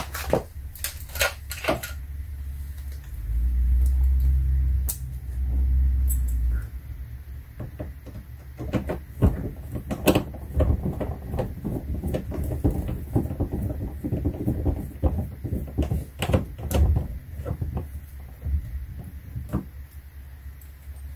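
Hands working at a car's front wheel well: scattered knocks, clicks and clatter from parts and tools being handled. There are two low rumbles about three to six and a half seconds in.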